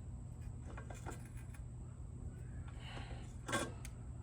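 Small metal clicks and scraping as a fitting is tightened into an aftermarket intake manifold, with a short louder scrape about three and a half seconds in, over a steady low hum.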